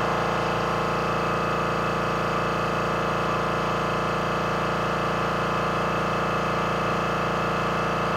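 A steady, unchanging machine hum made of many held tones over a background hiss, with no knocks or tool sounds.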